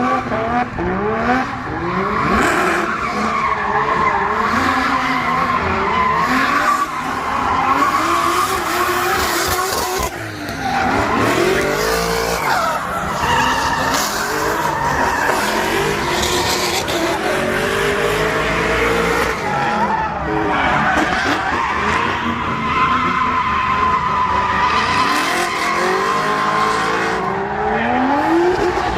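A drift car being driven hard: the engine revs up and down repeatedly under sustained tyre squeal as the car slides.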